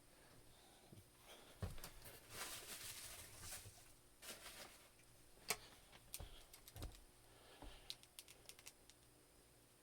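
Faint handling noises from plastic action figures: scattered light clicks and taps, with a brief rustle about two to three seconds in.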